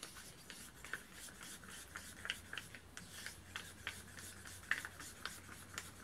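Wooden craft stick scraping around the inside of a cup as thick acrylic paint is whipped fast to break up clumps: a quick, uneven run of faint scrapes and taps.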